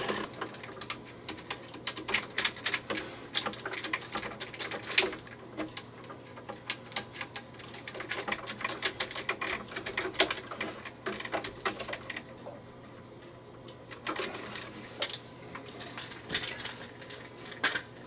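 Screwdriver tightening the terminal screws on a duplex electrical receptacle: quick, irregular runs of small clicks as the driver turns and the screws seat, with a lull near the end before a few more. A faint steady low hum sits underneath.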